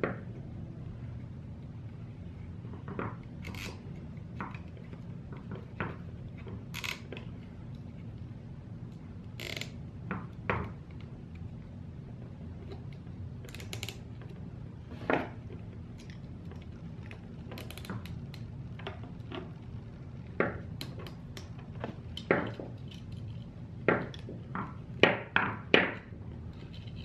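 Nylon zip ties being handled and pulled tight around a quadcopter frame, with scattered sharp clicks and light knocks from the ties' ratchets and the plastic and metal parts. The clicks grow busier and louder over the last several seconds, over a steady low hum.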